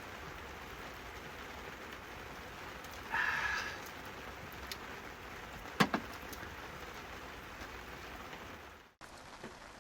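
Steady rain falling, with a short higher-pitched sound about three seconds in and two sharp knocks a little before six seconds. The sound cuts off suddenly near the end.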